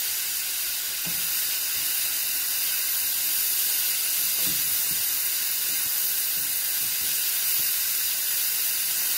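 Leek, carrot, corn and tuna filling sizzling steadily in a frying pan as it is stirred with a wooden spoon, with a few soft taps of the spoon against the pan.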